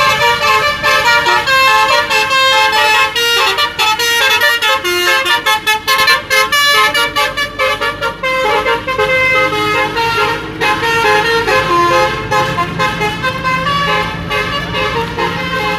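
Basuri telolet horn, a multi-tone musical horn, playing a fast tune of short notes that change several times a second.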